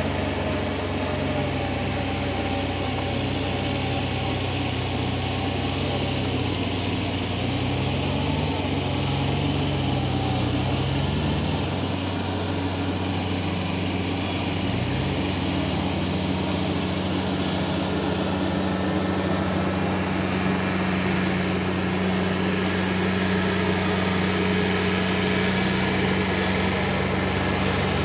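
Tractor diesel engines running steadily while ploughing a flooded rice paddy. The engine pitch wavers up and down for several seconds in the first half, then settles.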